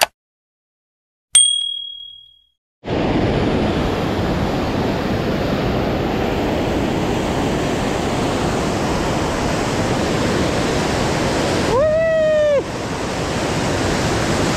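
A click and a short ringing chime, then about three seconds in the steady rush of a flooded, muddy mountain river running high through rapids. A brief high call, like a voice, cuts in near the end.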